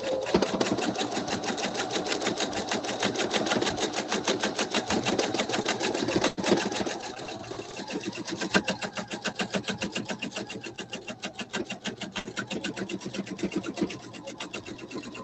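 Pfaff sewing machine running continuously in free-motion quilting, the needle going through the quilt in rapid, even strokes. It hesitates briefly about six seconds in, then runs on a little quieter.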